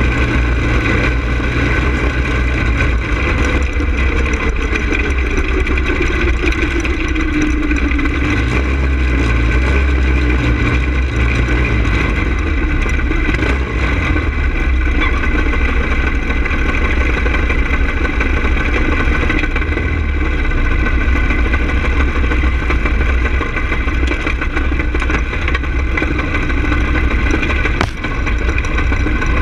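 Onboard go-kart engine running, its pitch falling over the first several seconds as the kart slows from track speed, then running steadily at low speed, with a constant loud low rumble.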